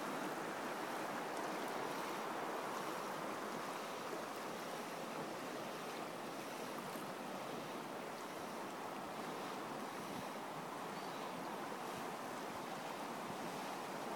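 Steady rushing of a river running over shallow rapids, an even, unbroken water noise.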